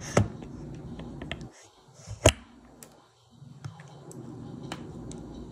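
Scattered light clicks and taps from food and plastic takeout containers being handled on a kitchen counter, with one sharper click about two seconds in.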